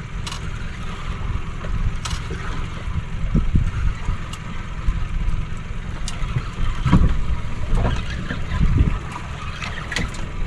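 Wind buffeting the microphone on a boat at sea: a low rumble that swells and eases in gusts, with a few faint clicks.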